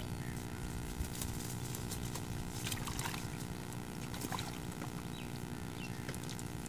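A steady low rumble, with scattered rustles and crackles from a cast net and a plastic sack being handled.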